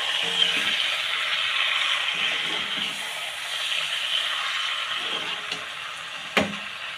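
Chicken pieces sizzling steadily in a hot pan of oil and spices, a little louder at first, with a single sharp knock near the end.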